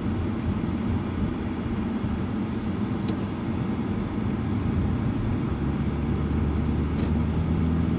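Road and engine noise heard from inside a moving car: a steady low rumble of tyres and engine, settling into a steadier low engine hum from about five and a half seconds in.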